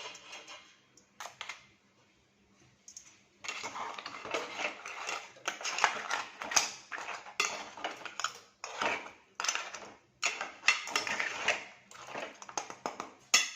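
Metal utensil scraping and clattering against a cooking pot in repeated bursts as the crab pieces in masala are stirred, starting a few seconds in after a quiet stretch with a few clicks.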